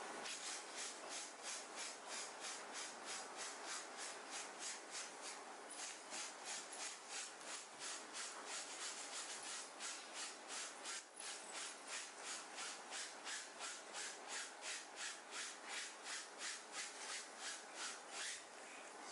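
A small wooden-backed brush scrubbing back and forth over a stained shirt, scrubbing the stain out. It makes an even rasping rhythm of about two to three strokes a second, broken by two short pauses.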